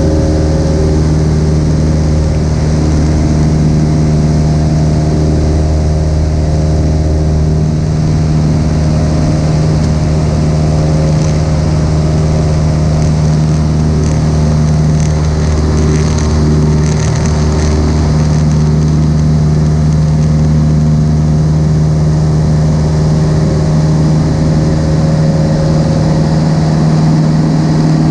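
Cessna 172's piston engine and propeller running steadily in flight, heard from inside the cabin as a loud, even drone at a constant pitch.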